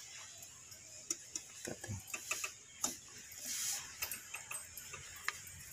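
Scattered light clicks and taps, irregular and not in a steady rhythm, from hands and tools handling parts around an engine's timing belt and tensioner.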